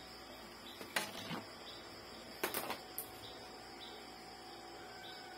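Faint insect chirping, a short note repeated over and over, under a quiet background, with a few soft clicks in the first half.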